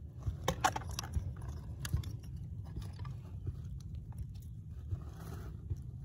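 Dry leaf litter rustling and crackling close to the microphone, busiest in the first two seconds, over a steady low rumble of wind on the microphone.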